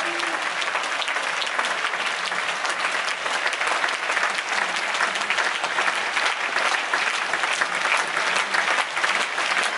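A theatre audience applauding steadily: the dense, even clapping of many hands.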